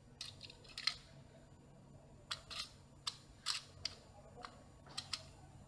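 Small spare plastic and metal phone parts clicking and rattling against each other and a clear plastic box as they are picked through by hand: about ten short, sharp, irregular clicks.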